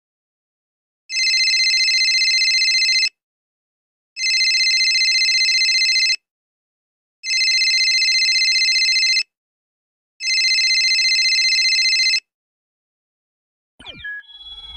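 A telephone ringing four times, each trilling ring about two seconds long with about a second between rings, then a short sliding sound near the end.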